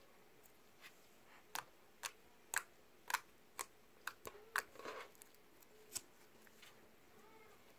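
Slime being squeezed and poked with the fingers, giving a run of sharp little pops and clicks, about two a second, with a short squelch about five seconds in.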